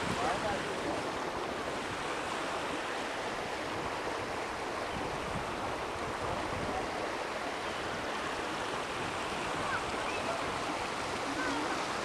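Steady rush of shallow water running over rocks at the outlet of Lake Itasca, the start of the Mississippi River, mixed with wind on the camcorder microphone.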